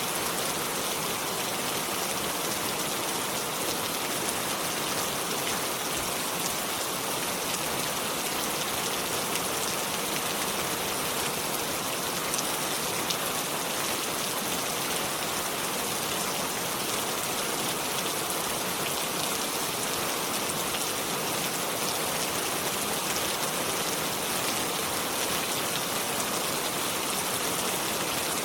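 Steady rain falling, a dense even hiss of drops with faint individual drop patter.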